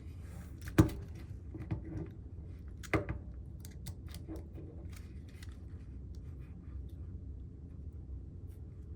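Small clicks and knocks of hand-tightening screws to fix a small robot motor assembly onto its wheel hub: a sharp knock about a second in and another around three seconds, then light scattered ticks over a steady low hum.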